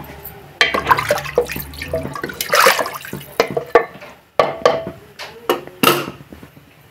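A ladle stirring water into a spiced potato mixture in a pressure cooker: the liquid sloshes, and the ladle clinks and scrapes against the pot's metal sides again and again.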